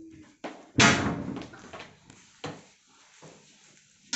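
A door slams shut with a loud bang about a second in, followed by a few fainter knocks. A sharp click comes at the very end as an under-counter dishwasher door is pulled open.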